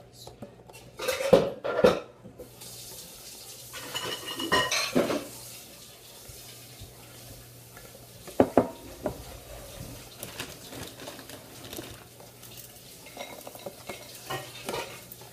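A spoon stirring brownie batter in a bowl, scraping and tapping against the sides, with several sharper clatters of dishes and utensils. The loudest knocks come in the first two seconds, with more about four to five seconds in and once more near eight and a half seconds.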